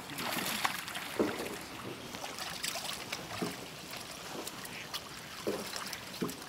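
Shallow lake water sloshing and splashing irregularly as a plastic tub is dipped and tipped out in knee-deep water, emptying young pike into the lake.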